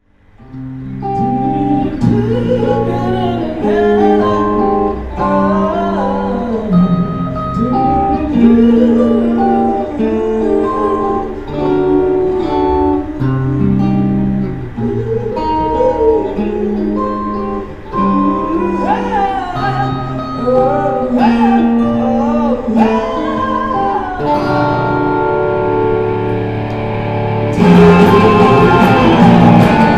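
A song played on guitar with a sung vocal line. About 27 seconds in the full band comes in and the music gets louder and brighter.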